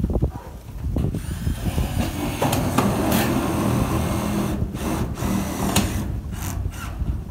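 A Milwaukee M18 cordless power tool drives a screw into corrugated metal roofing sheet. The motor spins up about a second in with a rising whine, then runs for about five seconds with a few sharp clicks.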